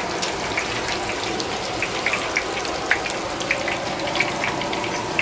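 Hot oil sizzling in a large wok as chicken deep-fries: a steady hiss with scattered crackling pops.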